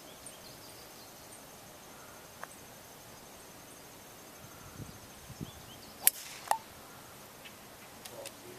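Golf club striking a ball off the tee: one sharp crack about six seconds in, followed by a second shorter sharp sound about half a second later. Insects trill steadily in the background until the shot.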